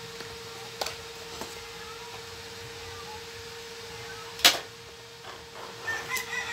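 Cardboard and clear plastic packaging of a GoPro Hero8 being handled and pulled apart: light clicks and taps, then one sharp snap about four and a half seconds in. A steady hum runs underneath.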